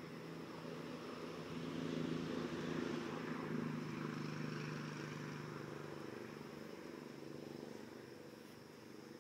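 A low droning hum of several steady pitches, swelling about two seconds in and slowly fading, over a steady thin high whine.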